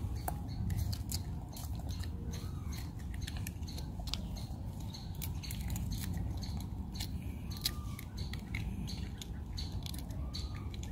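Monkeys eating, with irregular crunching and chewing clicks over a steady low rumble. A few short squeaks come about two seconds in, near eight seconds and near the end.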